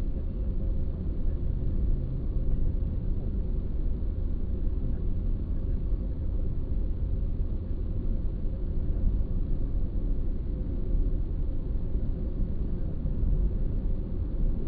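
Car driving along at steady speed: a continuous low rumble of engine and road noise, with a faint steady tone above it.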